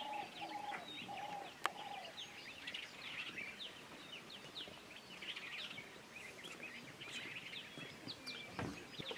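Birds chirping and trilling all around, with a lower call repeated about four times in the first second and a half and a single sharp click shortly after.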